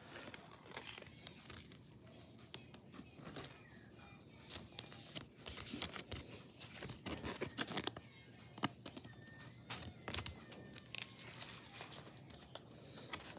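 Thin plastic card sleeve crinkling, and a sleeved trading card scraping as it is slid into a rigid plastic toploader: irregular light rustles, scrapes and small clicks.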